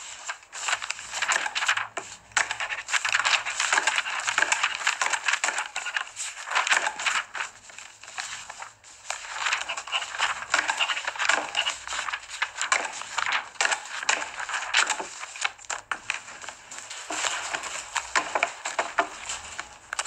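Sheets of paper being handled and crumpled: a dense crackling rustle that keeps going with a few brief pauses.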